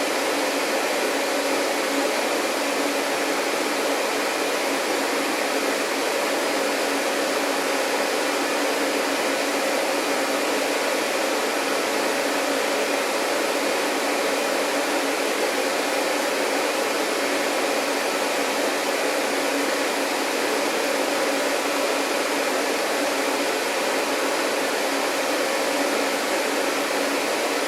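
Vacuum cleaner running steadily: an even, unbroken noise with a faint steady hum, no change in pitch or level.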